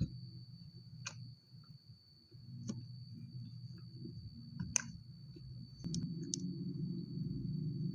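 Close-miked mouth sounds of someone eating chocolate toasted bread: chewing, with sharp wet clicks and smacks every second or two.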